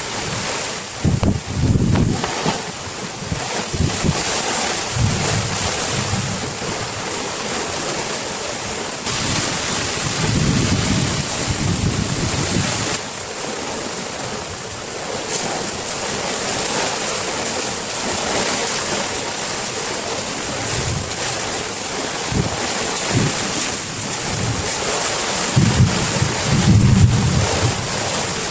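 Heavy storm noise: a steady hiss of torrential rain and wind, with strong gusts buffeting the microphone about a second in, around ten seconds in and again near the end.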